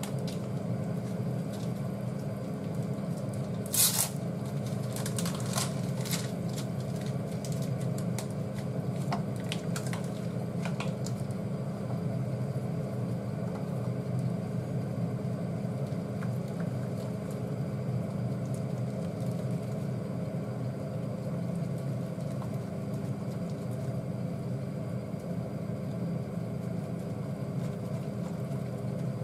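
Steady low hum of a kitchen induction hob with a saucepan of curry cooking on low heat. Chopsticks and curry roux pieces knock against the aluminium saucepan: one sharp clack about four seconds in, then lighter clicks and scrapes over the next several seconds.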